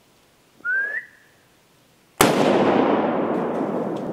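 Logo-intro sound effects: a short rising whistle, then about two seconds in a sudden loud bang that fades slowly over the following seconds.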